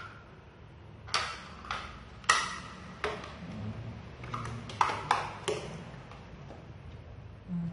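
A string of about nine sharp plastic clicks and knocks, the loudest about two seconds in, as the plastic parts of a sound-activated LED lamp are handled and fitted together.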